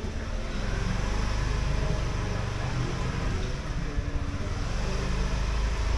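Motorbike engine running steadily, with road noise.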